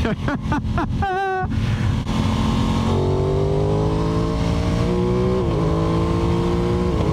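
Aprilia Tuono 660 Factory's parallel-twin engine pulling under acceleration, its note rising steadily, with a brief break in the note about five and a half seconds in before it climbs again.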